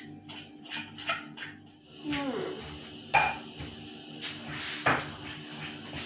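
A mixing utensil clicking and scraping against a bowl as thick brownie batter is stirred by hand, with a sharp, loud clank about three seconds in and another knock near five seconds.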